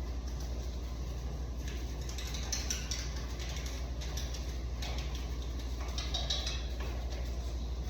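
Small clicks and rattles of an HVAC wall unit's parts being handled while it is taken apart for cleaning, in two clusters about two and a half and six seconds in, over a steady low hum.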